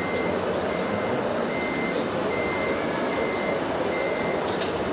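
Reversing warning beeper from a radio-controlled model truck's sound module: one steady high beep repeating a little over once a second, about six times, stopping shortly before the end, over a steady background din.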